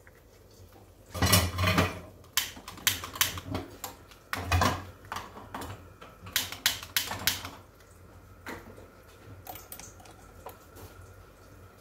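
A run of sharp clicks at a gas stove, a long utility lighter clicked over and over to light a burner, mixed with a few heavier knocks and thuds from handling pans and utensils, the loudest about a second in and about four and a half seconds in.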